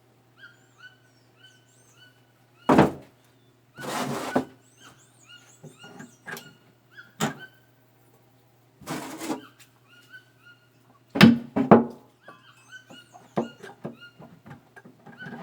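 Wood being handled and knocked: irregular heavy thuds with a few short knocks and a brief scrape about four seconds in, over repeated short chirps.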